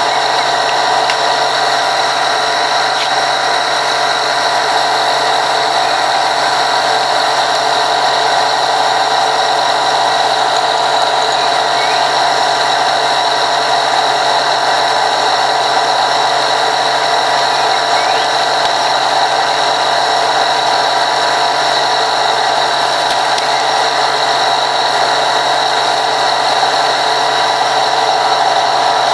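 A steady machine drone at several fixed pitches, unchanging throughout.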